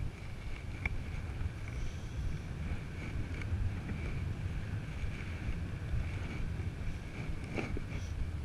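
Wind from a paraglider's airspeed buffeting the microphone: a steady low rumble with a faint hiss above it.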